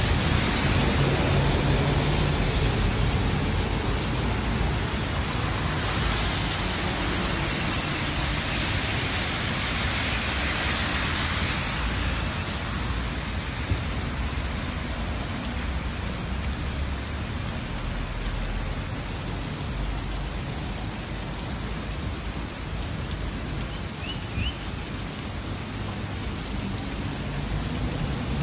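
Rain falling steadily, an even hiss that swells louder for several seconds about six seconds in.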